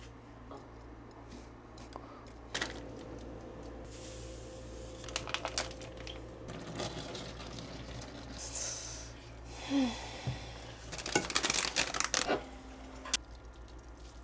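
Kitchen handling sounds: plastic packaging crinkling and tearing, with scattered light clicks and knocks and a cluster of them near the end. A faint steady hum runs for a few seconds from about three seconds in.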